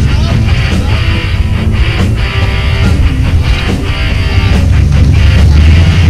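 Loud rock music with electric guitar and a steady beat.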